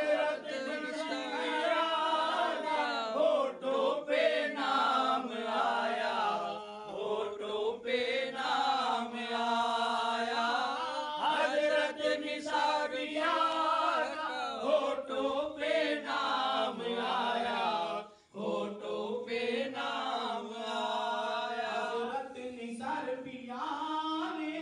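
A man singing an Urdu devotional song into a handheld microphone, in long, drawn-out wavering notes, with a brief break about three-quarters of the way through.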